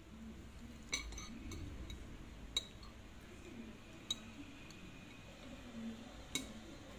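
A metal spoon and chopsticks clinking against a ceramic plate while noodles are scooped up: a handful of sharp, separate clinks spread a second or more apart.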